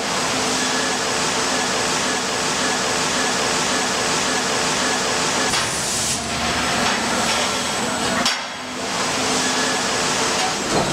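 Factory machinery noise on a steel hot-forming line: a loud, steady hiss with a faint hum under it, dipping briefly about eight seconds in.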